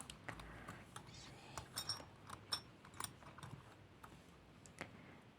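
Jewellery handled and tapped close to the microphone: scattered light clicks and small metallic clinks, a few of them ringing briefly.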